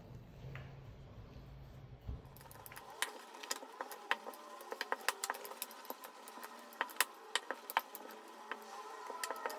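Rolling pin rolling out laminated croissant dough on a floured work surface, with light, irregular clicks and rattles several times a second starting about two seconds in.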